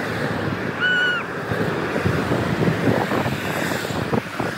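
A line of cars and pickup trucks passing on a paved road: steady tyre and engine noise mixed with wind on the microphone. A brief high-pitched tone sounds about a second in.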